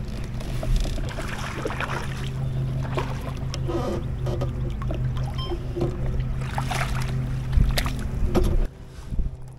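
Small electric outboard motor on an inflatable kayak running steadily with a low hum, water rushing along the hull and a few scattered knocks; the hum cuts off suddenly near the end.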